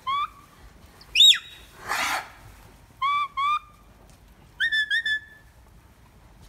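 Herding whistle commands to a working dog: a short rising whistle, then a loud sharp whistle that falls steeply in pitch, two short rising whistles, and near the end four quick higher whistles. A brief hiss comes about two seconds in.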